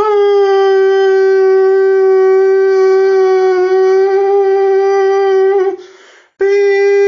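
Emergency alert attention signal: a loud, steady, buzzy horn-like tone held on one pitch with many overtones. It breaks off for about half a second near the end, then starts again.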